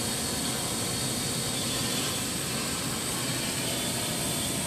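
Multirotor drone's electric motors and propellers whirring steadily as it hovers, holding its position.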